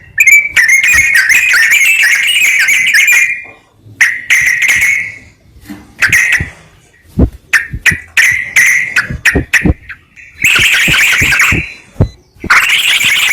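Yellow-vented bulbul (trucukan) singing: loud, bubbling, chattering phrases with a long burst at the start, shorter sharp notes through the middle, and another long burst near the end.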